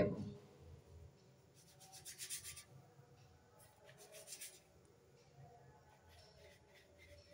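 Faint rubbing of a palm rolling soft rice-flour dough across a floured board, tapering it to points, in two brief strokes about two and four seconds in.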